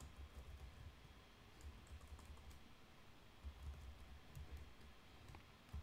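Faint, sparse keystrokes on a computer keyboard, typing at a slow, uneven pace.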